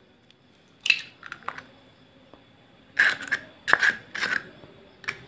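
A duck egg tapped with a plastic spoon and its shell cracked and pulled open: one sharp crack about a second in, then a few short crunching cracks between about three and four and a half seconds.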